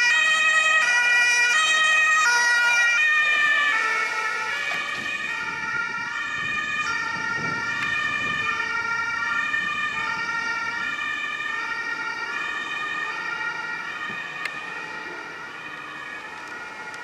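German ambulance's two-tone siren (Martinshorn) on an emergency run, alternating between a high and a low note. It is loud at first, dips slightly in pitch three to four seconds in as the ambulance passes, then fades as it drives away.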